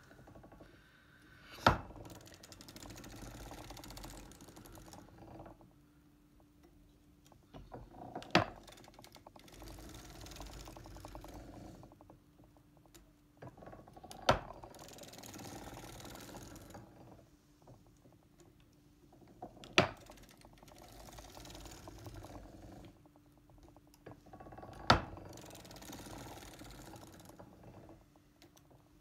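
Foster Victoria vintage circular sock machine being hand-cranked back and forth to knit a heel in short rows: a fine clatter of needles and cams, broken by five sharp clicks about five to six seconds apart.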